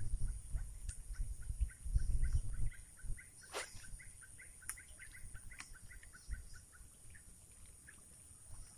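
A bird calling in a rapid run of short chirps, about four or five a second, over a steady high insect drone. About three and a half seconds in, the swish of a fishing rod being cast; low rumbling on the microphone in the first few seconds is the loudest part.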